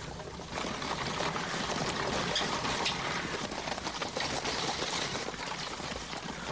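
Horses' hooves and a horse-drawn carriage rattling along a dirt track, a dense clatter of many hoofbeats that starts about half a second in.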